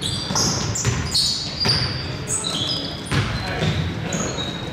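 Basketball game in a gym: the ball bouncing on the court, with many short, high shoe squeaks and players' voices.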